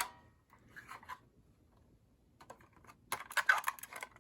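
Plastic and metal clicks of Fire-Lite BG-10 fire alarm pull stations being handled and pulled down: a sharp click at the start, a few faint clicks about a second in, then a quick cluster of clicks near the end.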